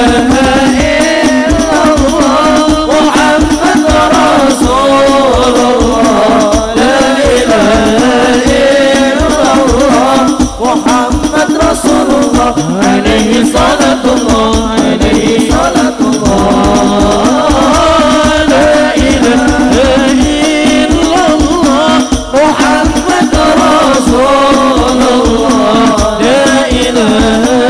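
Hadroh ensemble performing a sholawat: male voices singing a winding melody into microphones over fast, dense frame-drum beats.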